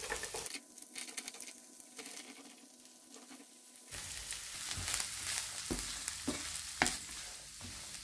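Chopped onions sizzling in hot sesame oil with garlic and mustard seeds, being stirred in the pan. In the second half, a few sharp knocks as the stirring utensil strikes the pan.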